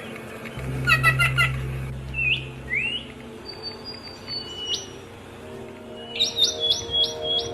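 Songbirds chirping and whistling: a quick burst of chirps about a second in, a few rising whistled notes, then a run of five quick notes near the end, over a low steady hum.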